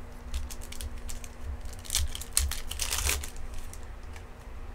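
Baseball trading cards and their foil pack wrappers being handled: a run of light clicks, rustles and crinkles as the cards are squared up and lifted, busiest about two to three seconds in.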